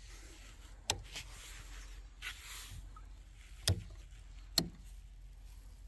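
Three sharp knocks a few seconds apart over a low steady rumble: storage hatch lids and gear being handled on the boat's carpeted deck.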